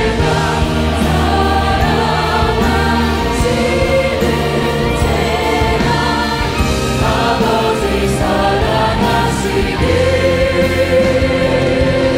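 Large choir singing a Christian song with orchestral accompaniment, the voices holding long, sustained notes.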